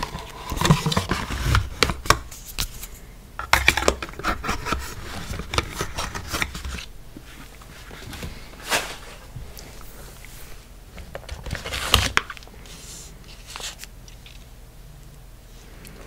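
Cardboard and paper packaging handled close to a microphone: scraping, tapping and rustling, busy in the first half, then a few separate sharper knocks and rustles, the loudest about twelve seconds in.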